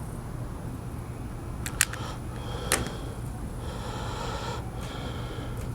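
A few sharp clicks from small parts being handled during the rod-tip repair: a quick double click, then a single click about a second later, over a low steady background.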